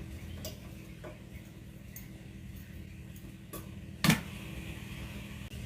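Scattered clicks and knocks from audio cables and connectors being handled while the sound system is patched together, the loudest about four seconds in, over a steady low hum.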